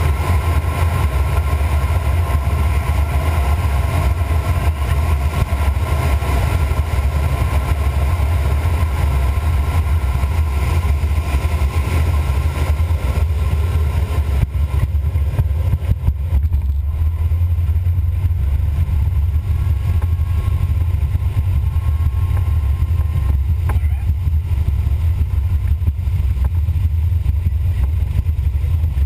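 Airflow noise inside the cockpit of an H-36 Dimona motorglider gliding with its engine off and propeller feathered: a steady low rumble with a hiss over it. The hiss drops away about fifteen seconds in as the glider pulls up from the low pass.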